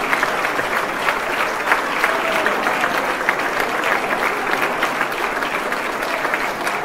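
Large audience applauding, a steady dense clapping that carries on without a break.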